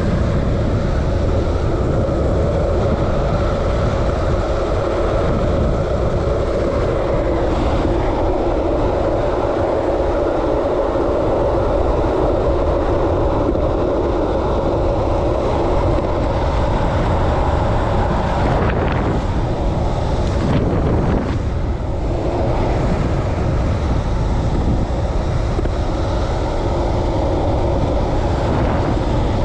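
Downhill longboard wheels rolling fast on rough asphalt at over 20 mph, a steady hum, with wind rushing over the microphone.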